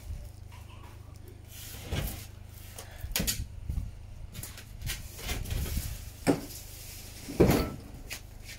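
A few separate dull knocks and bumps, a second or more apart, with the loudest one near the end, over a steady low rumble.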